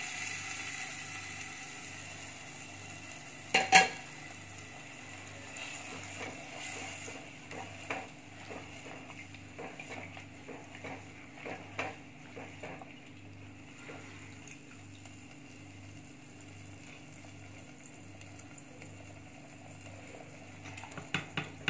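Cooked goat trotters being added to a clay pot of gravy and stirred in with a wooden spoon: a single loud knock about four seconds in, then a run of small clacks of the spoon against the clay pot for several seconds, over a low steady hum.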